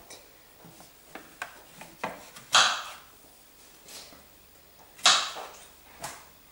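Kitchen knife slicing strawberries on a plastic cutting board: a string of short taps and knocks as the blade hits the board, the loudest about two and a half and five seconds in.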